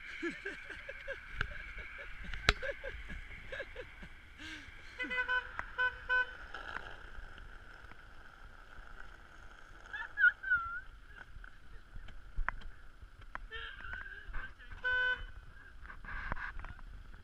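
Car horn beeping in short quick toots, a group of them about five seconds in and another near the end, over steady road noise.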